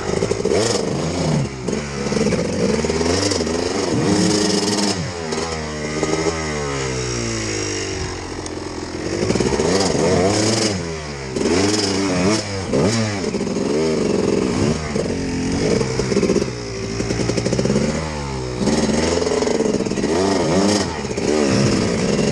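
A trials motorcycle engine blipped and revved up and down over and over as the bike crawls over loose rock, with occasional clattering.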